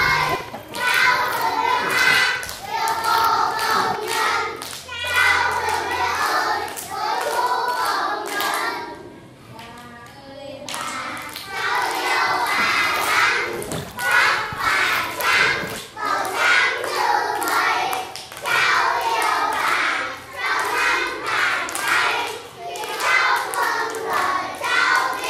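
A group of children singing a song together, with a short break about ten seconds in.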